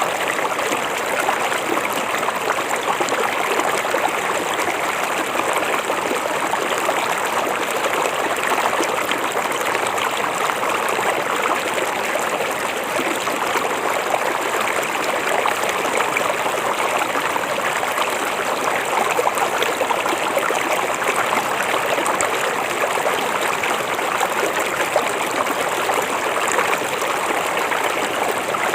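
River water flowing steadily, an even rushing and babbling of water without pause.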